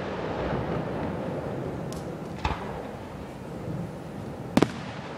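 Aerial firework shells bursting: a light crack about halfway through and a sharp, louder bang near the end, over steady background noise.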